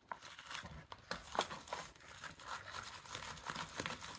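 Slime being stirred with a stick in a clear plastic tub: soft, irregular clicks and scrapes of sticky slime and the stick against the plastic.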